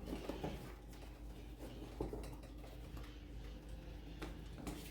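A few faint scattered knocks and clicks of household things being handled during tidying, over a low steady hum.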